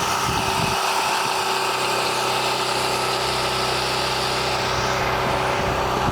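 Backup generator engine running steadily with a constant hum, powering the freezers during a power outage.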